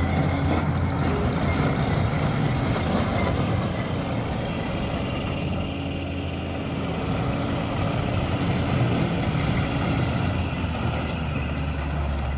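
A 2016 Takeuchi TL8 tracked loader's four-cylinder turbo diesel engine running steadily with a low hum. It eases off a little about five seconds in, then picks up again.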